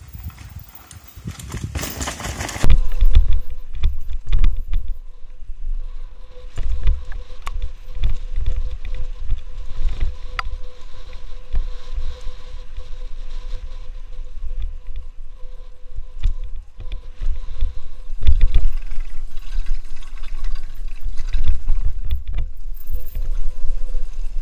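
Onboard sound of a mountain bike descending a rough dirt forest trail: wind buffeting the helmet-mounted microphone, with irregular rattles and thumps as the bike hits bumps. It starts about two seconds in after a quieter opening.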